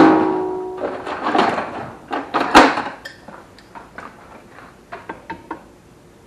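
Metal hand tools clanking and rattling: a sharp metallic clank that rings on for most of a second, a couple of seconds of rattling, another loud clank about two and a half seconds in, then a few lighter clicks.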